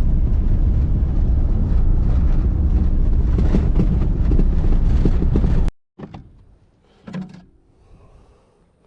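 Boat underway with strong wind buffeting the microphone, a loud steady rumble; it cuts off suddenly about six seconds in, leaving a quieter stretch with a few short knocks.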